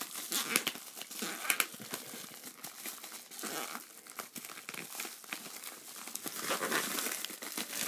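A package being torn open by hand: irregular crinkling and ripping of the wrapping, which resists and gets busier near the end.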